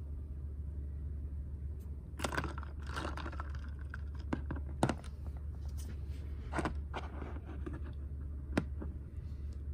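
A small plastic LOL doll figure handled and dipped into a cup of ice water: scattered scrapes and sharp clicks, the loudest about five seconds in, over a steady low hum.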